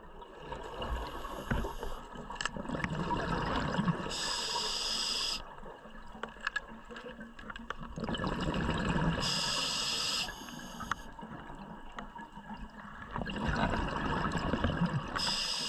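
Scuba diver breathing through a regulator underwater: each exhaled breath goes out as gurgling bubbles, followed by a short hiss from the regulator as the next breath is drawn. About three breaths, one every five seconds or so.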